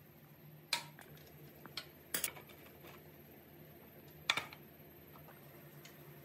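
Sharp clicks and knocks of tools and metal parts being handled on a small motorcycle engine on a workshop stand: a few separate taps, the loudest just under a second in, just past two seconds and just past four seconds, over a faint steady hum.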